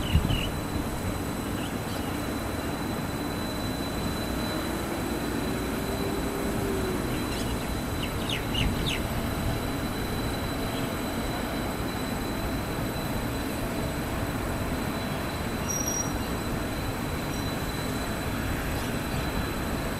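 Bombardier rubber-tyred driverless metro train pulling out of the depot along the guideway, a steady rolling noise. A whine rises and falls a few seconds in, and there are a few short high squeals about eight seconds in.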